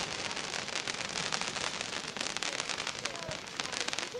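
Firework crackle: a dense, rapid run of small pops from crackling stars burning out as they fall after a shell burst.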